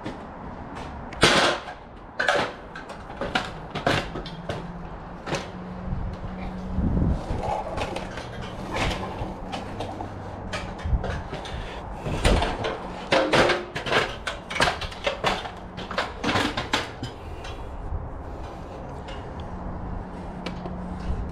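Irregular knocks, taps and clatter from handling and fixing a telephone cable run along timber beams and brickwork, with a steady low hum underneath.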